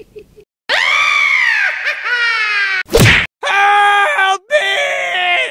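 A long wailing cry that falls in pitch, a single sharp whack about three seconds in, then more wavering cries sliding downward, the kind of added cartoon-style voice effects that accompany a toy car being knocked over.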